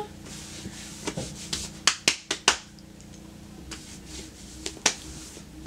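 Hands rubbing and brushing at fabric pants to clean off spilled makeup powder, with a quick run of sharp clicks about one to two and a half seconds in and a few single clicks later.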